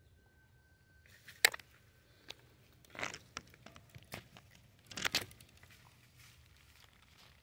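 Dry leaves and twigs crunching and crackling under goats' hooves in a few short bursts, with a sharp snap about a second and a half in and louder crunches about three and five seconds in.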